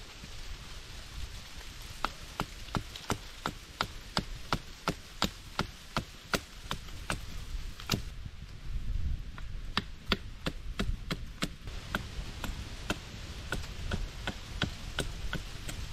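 Wood being chopped with a blade in quick, even strikes, about two or three a second, in runs broken by short pauses, the last run fainter.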